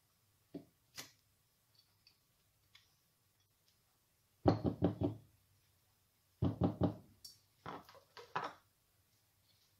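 Spatula knocked against the rim of a NutriBullet blender cup to shake off cream cheese. A couple of light clicks, then three runs of quick knocks from about halfway through.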